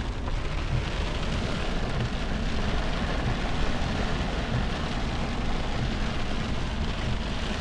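Heavy rain falling on a car's roof and windows, heard from inside the cabin, with a steady low rumble from the moving car.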